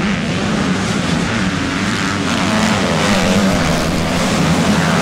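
A pack of motocross bikes racing together, many engines revving at once and overlapping. The sound grows a little louder about halfway through as the bunch comes closer.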